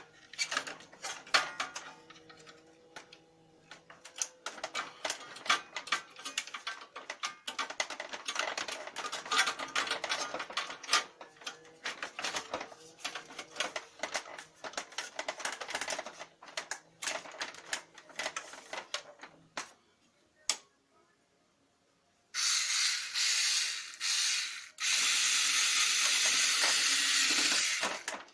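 Lexmark X364dn laser printer's mechanism running, a steady motor hum under rapid irregular clicking and rattling from its drive. About twenty seconds in, the rattling stops; after a short pause come loud bursts of hissing, like a spray.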